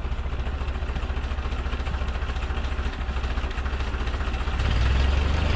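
1944 Ford 2N's four-cylinder flathead engine running steadily at a low idle while it warms up. About four and a half seconds in, it speeds up and gets louder as the throttle is opened.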